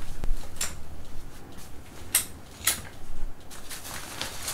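Folding baby playpen frame being pulled up and locked: a few sharp clicks and knocks from the rails and latches, with fabric rustling between them.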